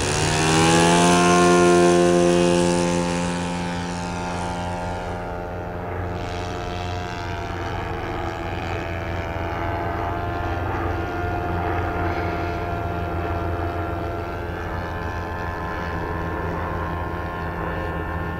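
O.S. 1.20 four-stroke model engine of a radio-controlled P-51 Mustang going to full throttle for takeoff: its pitch rises in the first second and it is loudest for the next couple of seconds. Then it drones steadily and a little quieter as the plane climbs away, the pitch drifting slowly as it flies past.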